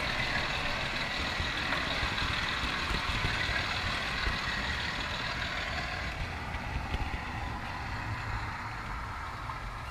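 Model train wheels running on the layout's track, heard from a camera riding in one of the wagons: a steady rumbling noise from wheels and rails, with the vibration carried straight into the camera.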